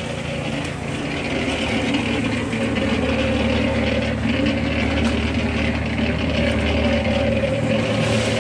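Cement mixer running with a steady motor hum, which gets fuller and a little louder about two and a half seconds in.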